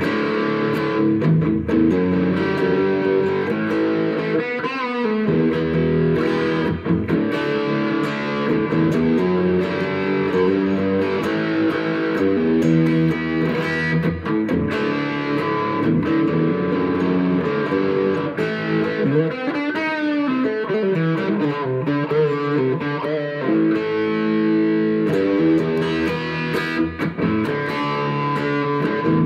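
Gibson SG electric guitar played through an amplifier, with notes and chords ringing continuously. Its pitch glides twice, about five and about twenty seconds in.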